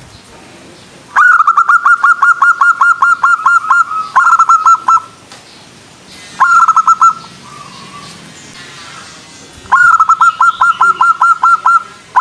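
Zebra dove (perkutut) calling in quick runs of short, repeated staccato notes, several bursts with pauses between, the longest lasting about three seconds.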